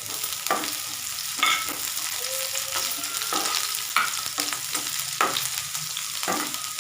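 Chopped beans, ginger and garlic sizzling in hot oil in a pan while being stirred. A spatula knocks and scrapes against the pan several times over the steady sizzle.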